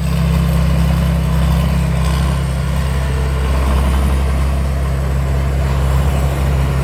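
Kaset Pattana Chao Chang Wi-Fi 2024 combine harvester running steadily, a low, even engine drone.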